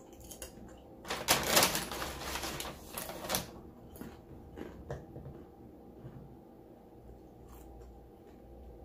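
Mukbang eating and handling sounds: about two seconds of loud rustling and crackling, then a handful of scattered light clicks and taps.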